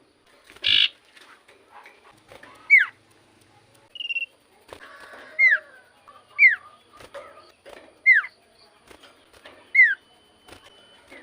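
Common iora (cipoh) singing: a loud, short whistle sliding quickly downward, repeated five times a second or two apart, with a brief buzzy call near the start and softer chirps and a short steady note in between.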